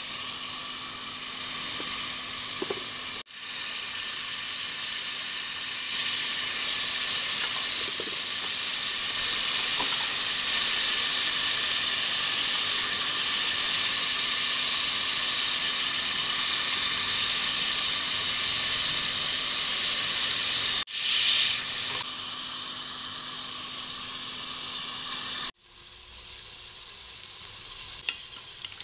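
Tomato and green chilli masala frying in oil in an aluminium pot: a loud, steady sizzling hiss. It breaks off abruptly three times, and a faint steady low hum runs beneath it.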